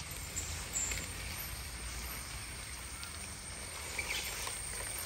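Steady outdoor background noise: an even hiss with a low rumble underneath and no distinct event standing out.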